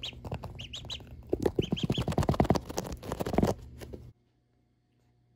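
Ducklings peeping in short high chirps, several at a time, close to the microphone. About a second in, a rapid clatter of taps, the loudest part, runs for about two seconds as a duckling pecks with its bill right at the microphone. Everything cuts off suddenly near the end.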